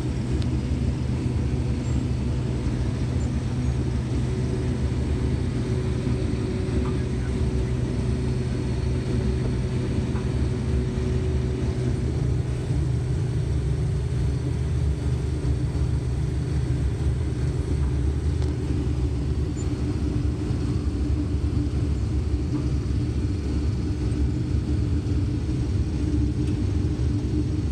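Combine harvester running steadily while harvesting corn: a constant low engine and machinery rumble with a steady hum.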